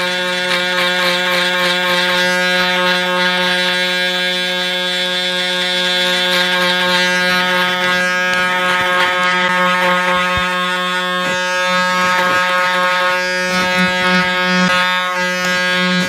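Electric foil shaver running against the skin of the neck: a steady, pitched buzz with faint scratchy rasps as the foil cuts the remaining stubble.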